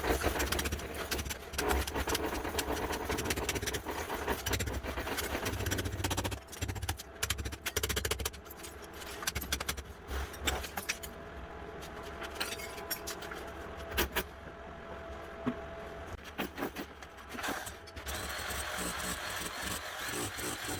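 Irregular knocks, clatter and scraping from floor demolition, with a steadier noise setting in near the end.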